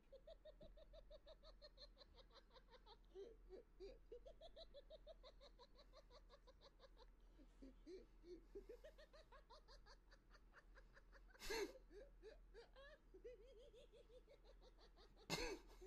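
People laughing hard in a long, rapid run of giggling, with two short loud noises about 11 and 15 seconds in.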